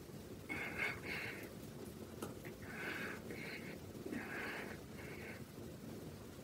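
A woman's breathy, audible breathing: short in-and-out breaths in pairs, about three pairs over several seconds.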